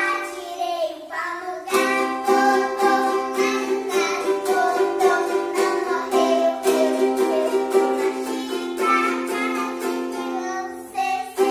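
A ukulele strummed in a steady rhythm, with children singing along. There is a short break in the strumming near the end.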